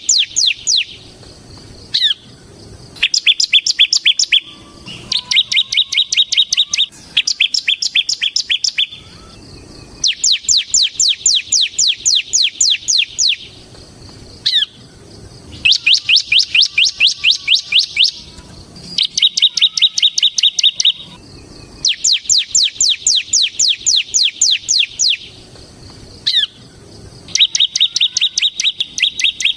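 Bar-winged prinia (ciblek) singing its rapid 'ngebren' song: runs of fast repeated sharp notes lasting two to three seconds each, separated by short pauses, some runs higher and some lower and steadier.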